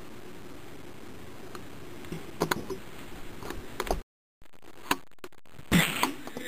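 Scattered knocks and thumps from a mock scuffle and a handheld camera being moved about, over steady room hiss. A louder thump comes near the end, and the sound cuts out briefly about four seconds in.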